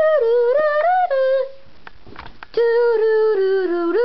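A high voice humming a wordless tune in two phrases, with the notes held and sliding between pitches and a short break in the middle.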